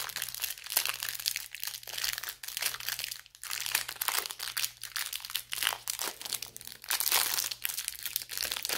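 Clear plastic wrap around a stack of trading cards being picked at and pulled open by hand, a continuous crinkling crackle.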